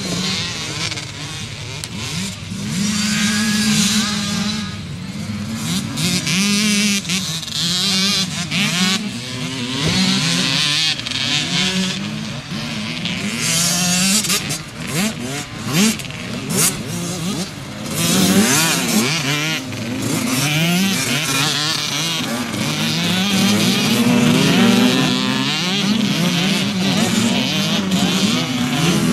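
Several racing motorcycles revving hard. The engine pitch climbs and drops again and again as the bikes accelerate and shift, and the notes of different bikes overlap.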